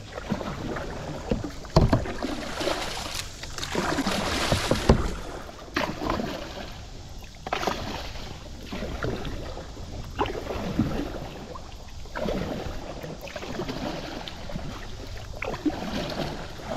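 Kayak paddling: a double-bladed paddle dipping and pulling through shallow river water, splashing on alternating sides with a surge about every one to two seconds.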